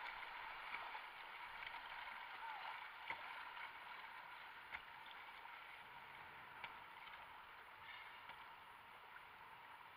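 Whitewater river water rushing around a kayak, a faint steady hiss with a few light knocks, slowly fading.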